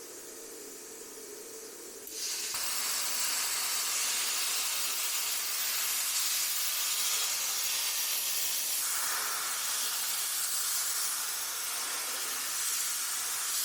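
A steady hiss of air or gas under pressure, starting suddenly about two seconds in and running on without a break.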